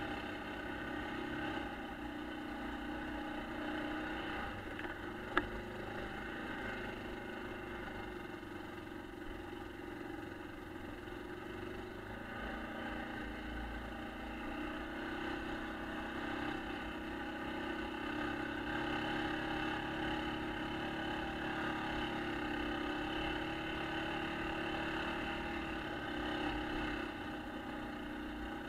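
1996 Yamaha Kodiak ATV's single-cylinder four-stroke engine running steadily as the quad rides along. A single sharp knock about five seconds in.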